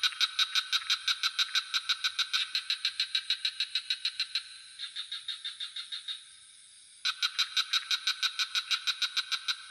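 Frogs calling in fast rattling trills of about eight pulses a second, each run lasting a few seconds, with a fainter trill in the middle and a loud one starting about seven seconds in. A steady high chirring of crickets runs underneath.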